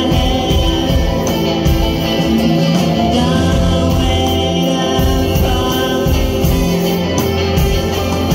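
Live band playing a song: sung vocals over guitar and drums, loud and steady throughout.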